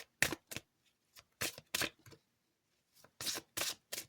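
Irregular series of short, sharp clicks and brief rustling bursts from small objects being handled, about a dozen in a few seconds with quiet gaps between.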